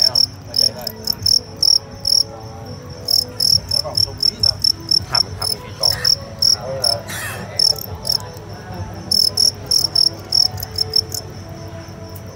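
Male fighting crickets chirping in the arena: sharp high-pitched chirps at about three a second, coming in several bouts a few seconds long with short pauses between them.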